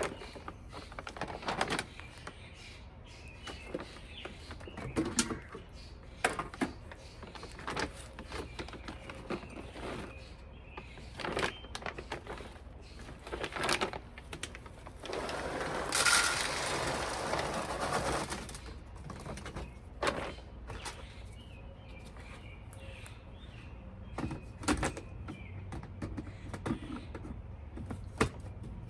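Pigeons cooing and small birds chirping, with scattered knocks and rustles of handling. About halfway through comes a loud rush of dry cat food kibble poured out for several seconds.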